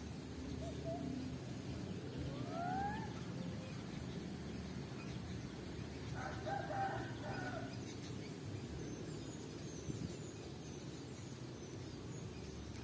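A rooster crowing faintly once, about six seconds in, over a steady low outdoor rumble, with a short rising call a couple of seconds earlier.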